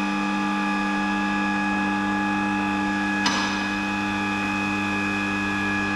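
A steady machine hum at an even pitch, with one short click about three seconds in.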